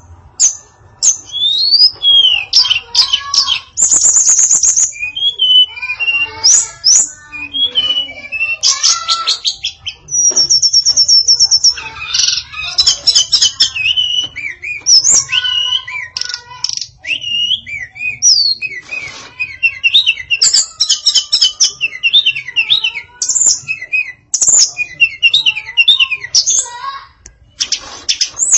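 Female tledekan songbird singing a fast, varied song, whistled phrases, chattering notes and rapid high trills crowded close together, full of borrowed phrases from other birds' songs. A faint low hum lies underneath.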